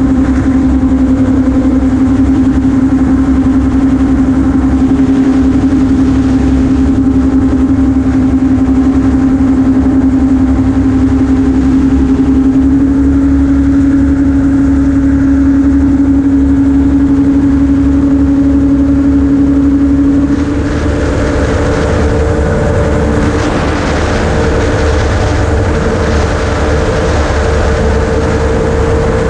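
Ultralight amphibious gyroplane in flight: its engine and propeller drone steadily and loudly. About two-thirds of the way in the engine note shifts higher and gets slightly quieter.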